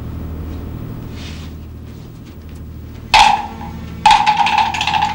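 Film soundtrack music: a low hum, then about three seconds in a sudden loud stab, and about a second later a loud cue with a held high note over fast percussion begins.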